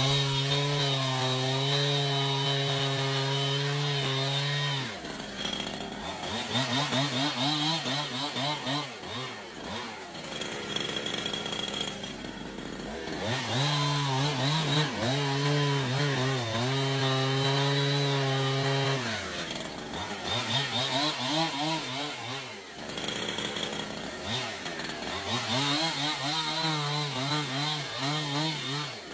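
Chainsaw engine running, held at high revs for stretches of several seconds, twice, with the revs dropping and rising unevenly between.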